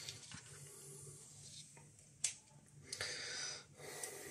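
Faint handling noises from the dosimeter's extension rod and probe assembly, with a single sharp click about two seconds in and a faint rustle after it.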